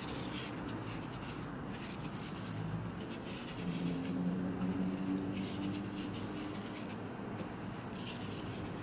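Coarse salt being sprinkled from the fingers onto a raw chicken thigh on a ceramic plate, and the meat handled and turned over: irregular light ticks and rustles of grains and fingers.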